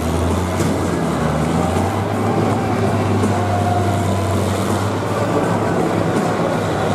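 Several combine harvesters' engines running together in a steady low drone as the machines drive about.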